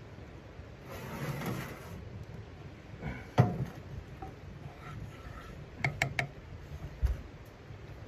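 Cookware being moved about on a metal wood-stove top: a scraping slide about a second in, a loud clank a little before halfway, then a quick run of sharp taps and a dull thump as a wooden spatula goes into the frying pan.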